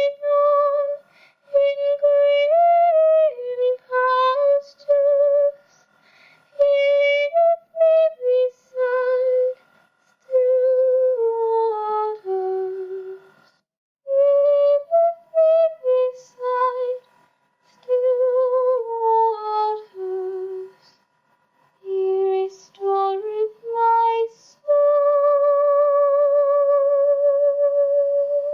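A woman singing an unaccompanied a cappella melody in short phrases with brief pauses between them, ending on a long held note with vibrato.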